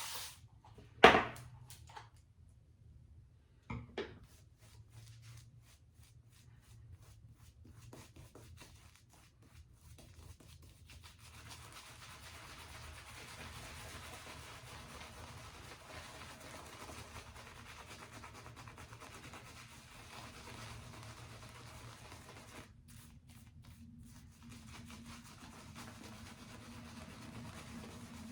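Synthetic shaving brush working lather on the face: soft, quick rubbing strokes that settle into a faint, steady swishing. There is a sharp knock about a second in and a smaller one a few seconds later.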